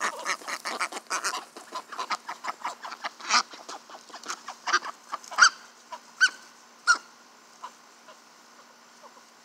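Young Cayuga and Ancona ducks quacking: a quick run of short, chattering quacks for about five seconds, then three louder single calls about two-thirds of a second apart, and after that only a few faint ones.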